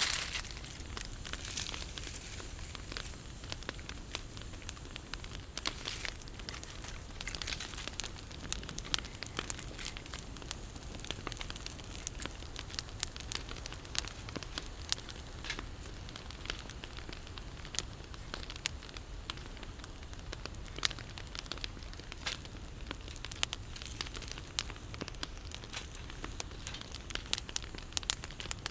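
Wood burning in a campfire fire pit, crackling with a steady, irregular scatter of sharp snaps and pops over a low, steady rumble.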